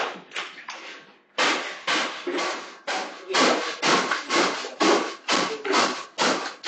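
A rapid, regular series of knocks or scrapes, about three a second, starting about a second and a half in.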